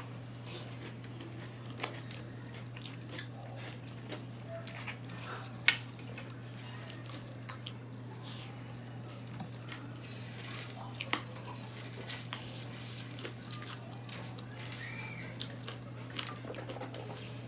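Quiet eating sounds at a meal of khichuri: scattered sharp clicks and taps against a plate, the loudest just before six seconds in, with soft wet mixing and chewing between them, over a steady low hum.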